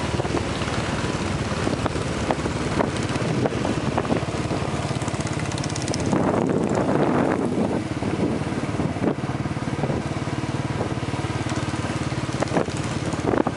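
Motorcycle engine running steadily under way, heard from the bike carrying the camera, getting louder for a moment about six seconds in.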